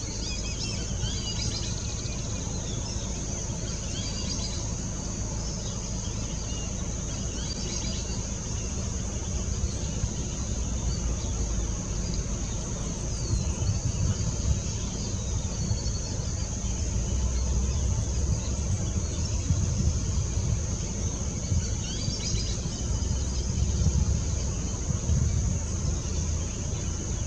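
Outdoor wetland ambience: a steady high-pitched insect drone, with brief bird chirps scattered throughout and a low rumble that grows louder about halfway through.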